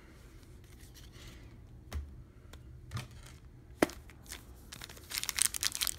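A few light clicks and taps, the sharpest just before four seconds in, then from about five seconds in the crinkling of a 2020 Donruss baseball card pack's foil wrapper being torn open.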